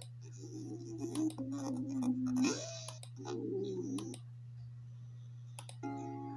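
Cartoon character's wordless wailing cries, played through computer speakers: a wavering voice that slides down in pitch, a quick upward swoop, then a warbling cry, over a steady low hum. Sharp mouse clicks cut in several times as the video is skipped ahead, and a short musical chord sounds near the end.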